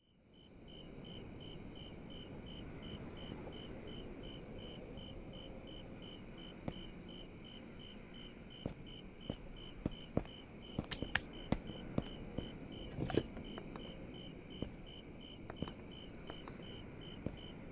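Night ambience of a cricket chirping steadily, about two or three short high chirps a second, over a faint hiss. From about six seconds in there are scattered soft taps and scuffs.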